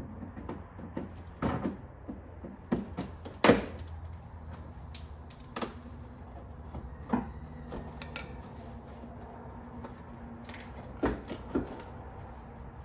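Scattered clicks and knocks of hands and tools working screws and plastic clips loose on a Chevrolet Camaro's damaged front-end trim, the loudest knock about three and a half seconds in, over a steady low hum.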